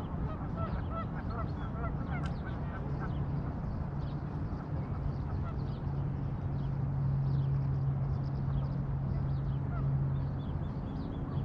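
Waterfowl honking in a quick series of short calls over the first few seconds, with small birds chirping throughout. Underneath runs a steady low hum that grows louder in the second half.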